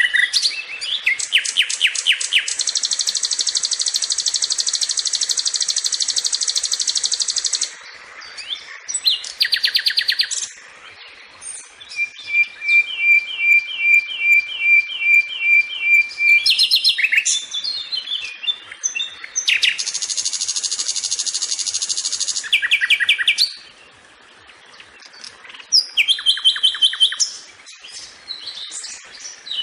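Sikatan (flycatcher) singing a varied song: rapid trills, long buzzy stretches, and a run of about ten even, clear notes in the middle, with short pauses between phrases.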